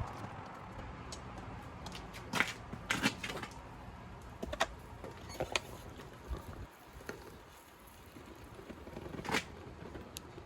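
Scattered light knocks and clicks at irregular intervals, over a low steady hum that drops away about two thirds of the way through.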